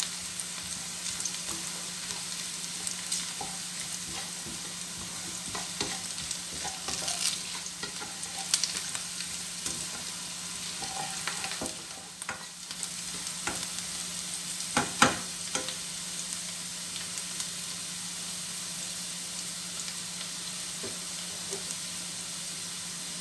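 Onion, garlic and bay leaves sizzling in hot oil in a stainless steel pan, with a spatula scraping and clicking against the pan as they are stirred, and one louder knock about two-thirds of the way in. The stirring then stops, leaving a steady sizzle.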